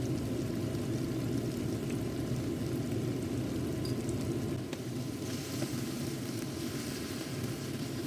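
Thick tomato and onion sauce simmering and sizzling in a frying pan, with small pops over a steady low hum. The hiss grows louder about five seconds in.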